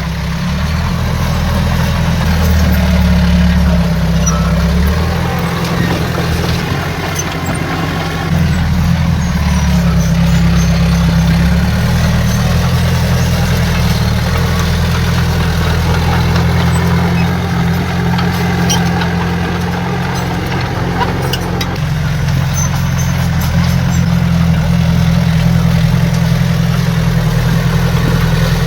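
Heavy diesel engine of earthmoving machinery running, its low drone swelling and easing every few seconds as the load changes, with occasional faint clicks and clanks.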